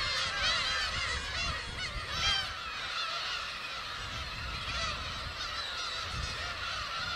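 A colony of black-tailed gulls calling, many calls overlapping without pause.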